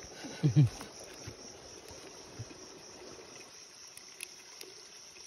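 Steady high-pitched chorus of insects in the background, with a brief human vocal sound about half a second in and a couple of faint clicks near the end.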